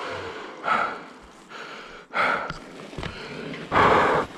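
A person breathing hard and gasping after heavy exertion: three loud, rasping breaths about a second and a half apart, the last the longest.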